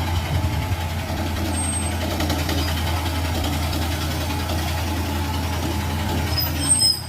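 Komatsu PC200 excavator's diesel engine running steadily at working speed, with a short sharp sound near the end after which the engine noise drops.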